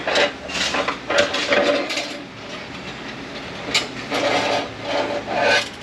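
Metal automatic-transmission parts clanking and rattling against each other and the bench as they are handled, with a series of ringing metallic knocks.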